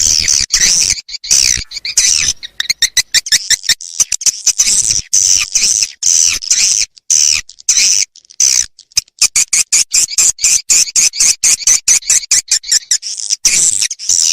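Recorded edible-nest swiftlet calls: a dense stream of rapid, high chirps and twitters with a few brief breaks. This is the 'lintasan' lure call, played in a swiftlet house to draw passing swiftlets in.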